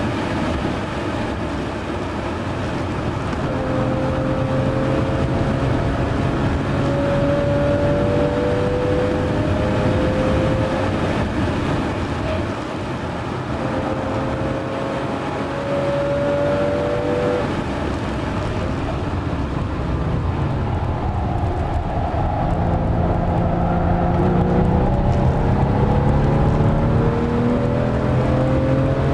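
Porsche 997 Carrera S's 3.8-litre flat-six heard from inside the cabin at speed, its note rising and falling with the revs and climbing steadily under acceleration in the last third, over wind and tyre noise.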